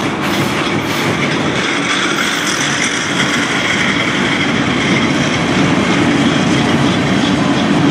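CN freight train rolling past close by: the steady noise of wheels and cars on the rails, growing slightly louder near the end.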